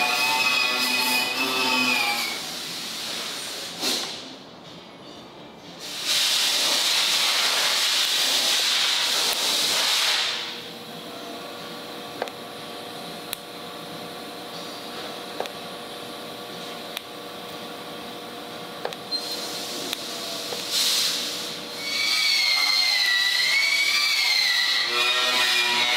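Background music fades out. A loud hiss runs for about four seconds, then a TIG welding arc gives a steady hum with a few faint clicks for about ten seconds, before music comes back in near the end.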